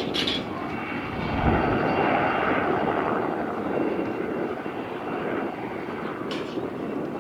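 Light aircraft's piston engine and propeller running in a steady drone, swelling to its loudest about two seconds in and then slowly easing.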